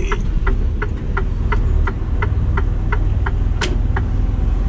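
Turn indicator ticking about three times a second in a Mercedes-Benz Actros truck cab while it turns, over the steady low running of its diesel engine. The ticking stops a little past three seconds in, followed by one sharper click.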